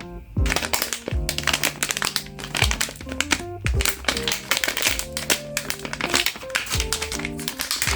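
Plastic packaging crinkling and crackling as it is handled, starting about half a second in, over background music.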